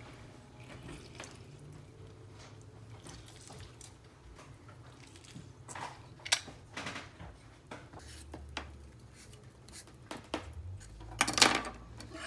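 Limes squeezed in a metal hand press over a glass dish: quiet squelching and a few sharp metal clicks, with a louder clatter of knocks near the end.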